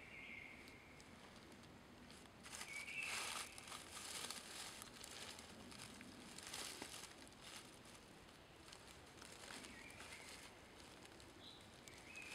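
Crinkling and rustling as aluminium-foil light reflectors are handled and repositioned, loudest from about two to five seconds in and again near seven seconds. A bird chirps faintly a few times.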